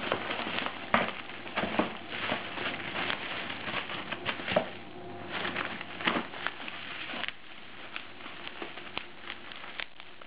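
Bubble wrap and plastic packing being handled and pulled apart by hand, crinkling and rustling with irregular crackles. It is busier for the first seven seconds or so, then thins to scattered crackles.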